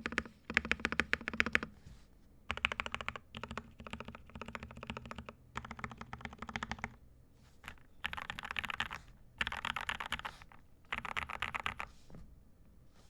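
Typing on a modded Royal Kludge RK68 mechanical keyboard, a deep thock sound test: quick runs of keystrokes in bursts of about a second with short pauses between, stopping near the end.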